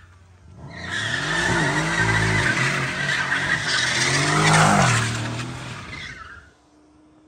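Mercedes-AMG C63 S coupe's stage 1 tuned twin-turbo V8 revving up and down while its rear tyres screech and spin through a smoky donut. It starts about a second in and dies away after about six seconds.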